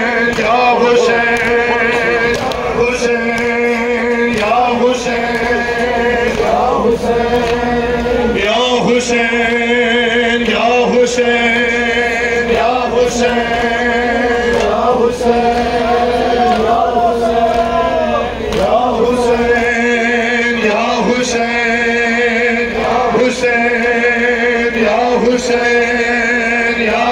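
Male reciter chanting a Muharram nauha (lament) into a microphone over a PA, with the crowd of mourners chanting along over a steady held tone. Sharp slaps of chest-beating (matam) land about every two seconds.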